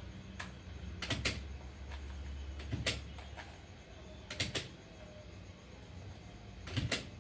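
A handful of short sharp clicks, some in quick pairs, about one every second or two, over a low steady hum.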